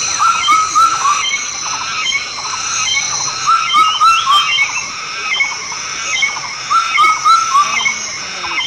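Repeated short animal calls, several a second in bursts, over a steady high-pitched whine.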